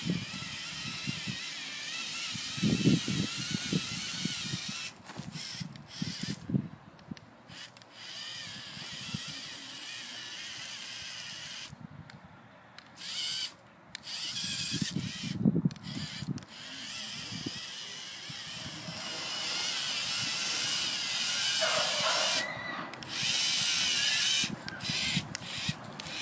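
LEGO Mindstorms EV3 robot's electric motors and gears whirring as it drives on rubber tracks over dirt and grass. The whir cuts out and comes back several times, with occasional low rumbles.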